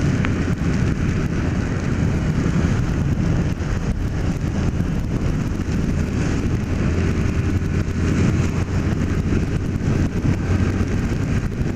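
Honda CG 150 Fan motorcycle's single-cylinder engine running steadily at cruising speed, with wind noise on the camera microphone and tyre noise on a wet road. The low hum grows a little stronger in the second half.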